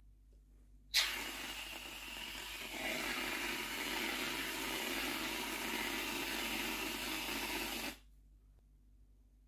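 Aerosol can of whipped cream spraying: a steady hiss that starts suddenly about a second in, grows louder a couple of seconds later, and stops abruptly after about seven seconds.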